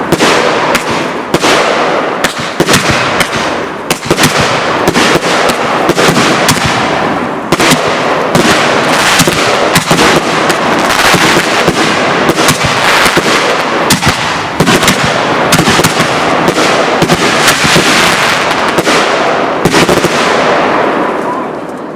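Fireworks going off: a long, dense run of rapid bangs and crackling pops that fades out near the end.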